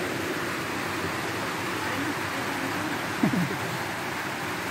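Steady background hiss, with a short falling vocal sound a little over three seconds in, the loudest moment.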